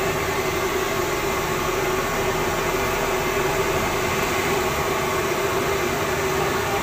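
A steady, unchanging roar of noise with a low hum running through it. There are no distinct knocks or other events.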